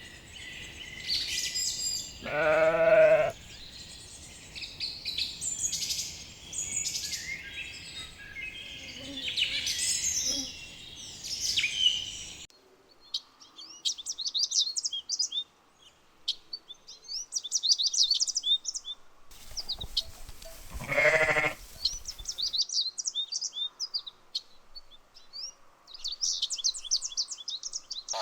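Sheep bleating twice, each call about a second long, over continual birdsong.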